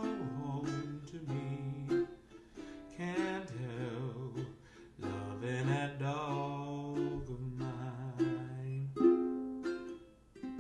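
A plucked-string accompaniment plays chords under a person singing long held notes with vibrato. The playing dips briefly near the end before a new strummed chord.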